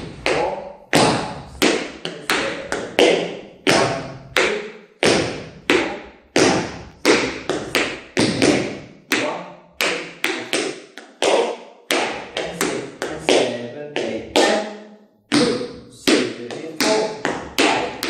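Tap shoes striking a wooden floor in a basic tap walk: a steady, even stream of taps, about two a second, each ringing briefly in the room.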